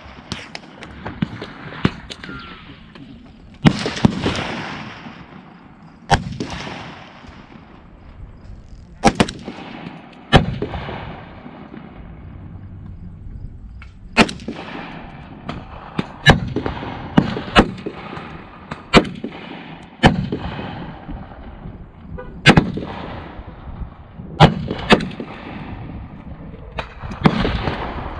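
Rifle gunshots, some of them from an AR-15 firing 5.56 mm brass, mixed with shots from neighbouring shooters. There are about twenty sharp reports at irregular intervals, several in quick pairs, each followed by a fading echo.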